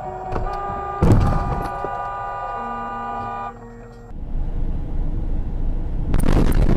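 Car horn held on steadily for about three and a half seconds, with a sudden loud thump about a second in. After a cut, steady road and wind noise from a moving car, louder near the end.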